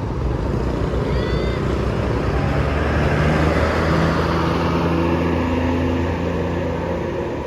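Large diesel vehicle, most likely a passing bus, running by with a steady engine hum that grows louder around three seconds in and then eases. A brief high chirp sounds about a second in.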